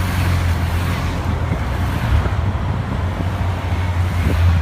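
Police motorcycles and convoy cars driving slowly past at close range: steady engine and road noise that swells as a motorcycle passes about four seconds in.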